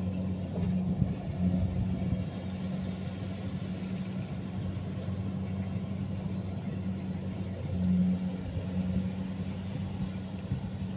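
Kubota rice combine harvester's diesel engine running steadily under load as it cuts and threshes rice, a low even hum that swells briefly about eight seconds in.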